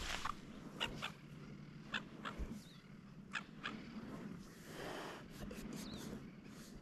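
Sea turtle hauling herself down the beach over sand toward the water: faint scattered short scrapes and taps, with a softer, longer rushing sound about five seconds in.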